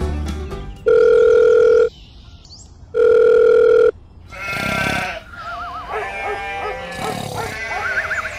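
Two long, steady electronic beeps of about a second each, then several quavering bleats of sheep or goats starting about four seconds in.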